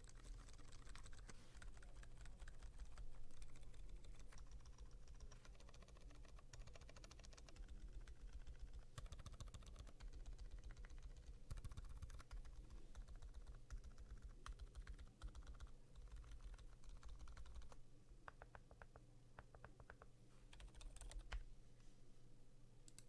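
Continuous typing on a GMMK Pro mechanical keyboard with lubed Gazzew Boba U4 silent tactile switches and PBT keycaps: a quiet, rapid run of soft, muted keystrokes.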